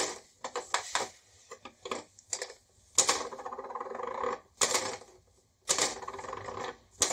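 Plastic toy skill game being played by hand: irregular sharp clicks and rattles of its plastic parts, with two longer stretches of clatter about three and six seconds in.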